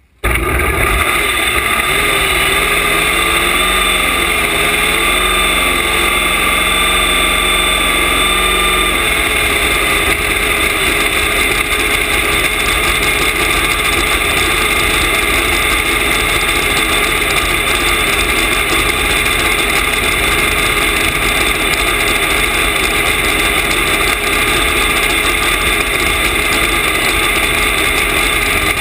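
Supercharged nitromethane V8 of a nostalgia top fuel dragster catching abruptly and then idling loudly and steadily, with a wavering tone under it for the first several seconds.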